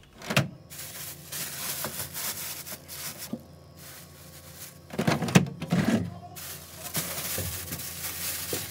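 Plastic bags of salad greens rustling and crinkling as they are handled and pushed into a refrigerator's vegetable drawer, with a sharp knock just after the start and a short cluster of bumps about five seconds in.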